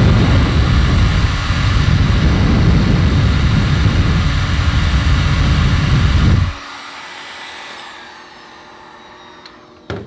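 Electric heat gun blowing steadily with a heavy low rumble as it heats a solder-seal heat-shrink butt connector, melting the solder ring and glue inside. It is switched off about six and a half seconds in, and the remaining hiss fades away as the fan runs down.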